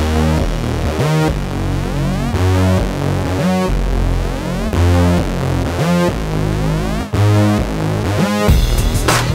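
Electronic background music led by a synthesizer, with a rising sweep repeating about every second and a quarter. Drums come in near the end.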